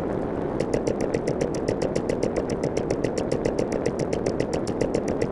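A small engine running steadily with a rapid, even clatter.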